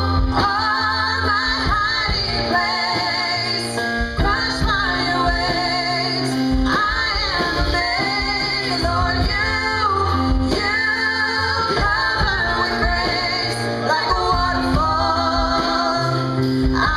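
A woman singing a worship song with vibrato over a steady instrumental accompaniment of sustained low chords.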